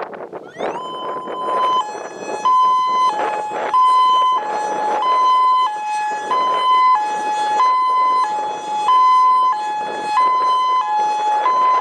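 Federal Signal Modulator 4016 electronic outdoor warning siren sounding a test. After a short rise about half a second in, it alternates steadily between a high and a slightly lower pitch, changing roughly every half second or so. Strong wind buffets the microphone throughout.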